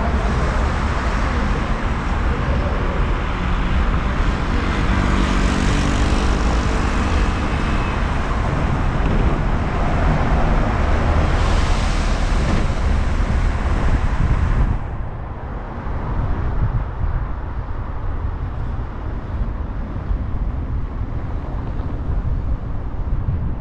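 Road traffic heard from a moving car's roof, under a heavy low wind rumble on the microphone, with a pitched engine hum about five to eight seconds in. About fifteen seconds in the sound abruptly turns duller and a little quieter.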